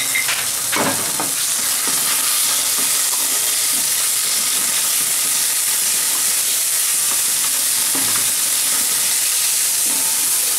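Browned onion and garlic, with fresh chilli and ginger paste, sizzling steadily in a little oil in a kadai, while a wooden spatula stirs and scrapes across the pan, scraping most clearly about a second in and again near the end.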